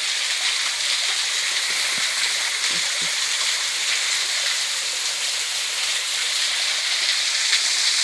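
A small waterfall on a forest stream, its water falling and splashing over rock with a steady rush.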